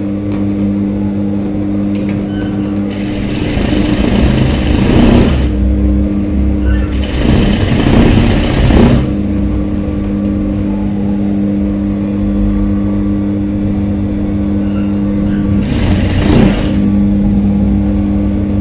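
Industrial single-needle sewing machine: its motor hums steadily, and in three spells it runs fast, stitching a seam through printed cotton fabric. The first two spells come close together early on, the third near the end.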